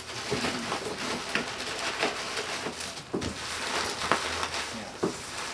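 Cardboard egg-carton pieces being pushed and wedged into a cardboard shipping box as padding: irregular scraping and rustling with light knocks and clicks.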